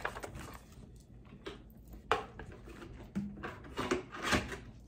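Handling noise as a cardboard box is moved aside: a sharp knock about two seconds in, then a cluster of knocks and scrapes near the end.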